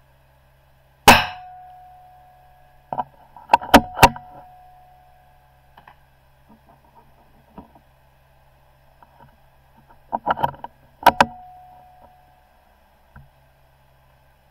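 .22 rimfire benchrest rifle firing twice, about ten seconds apart; the first shot is the louder, and each is followed by a short ringing tone. Between the shots come quick metallic clicks, like the bolt being worked.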